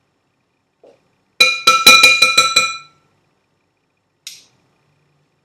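A teaspoon clinking rapidly against a ringing dish, about eight quick strikes in a second and a half, followed by one faint click.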